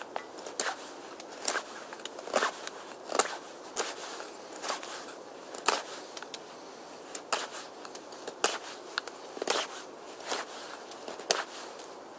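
Knife blade whittling a small piece of wood held in gloved hands: short, crisp cutting strokes, roughly one a second and irregularly spaced.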